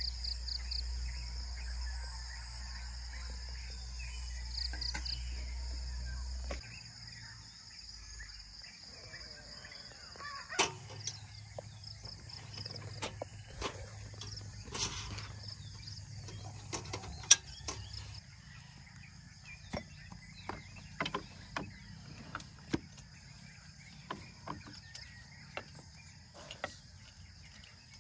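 Insects chirring steadily in the evening, with a few short pulsed trills early on and a low rumble that stops about six seconds in. From about ten seconds in, glass mugs and lidded glass jars are handled on a slatted wooden camp table: a run of separate clicks, clinks and knocks, the sharpest past the middle, as coffee things are set out and ground coffee is spooned.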